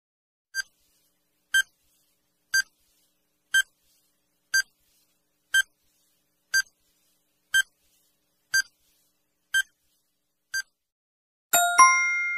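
Countdown-timer sound effect: a short, high beep once a second, eleven in all. Near the end comes a louder ringing end tone of several pitches as the timer reaches zero.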